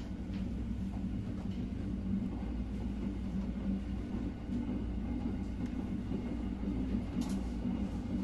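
Inside a moving passenger train: a steady low drone from the train's drive and running gear, with a couple of short clicks, one at the start and one about seven seconds in.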